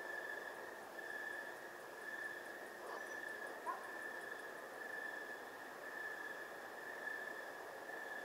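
Night insects singing: a steady high-pitched trill that swells and fades about once a second. A short sharp sound stands out about halfway through.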